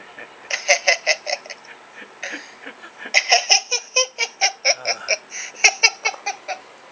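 A person laughing hard in quick, high-pitched ha-ha-ha runs, about six pulses a second, pausing briefly twice before laughing on.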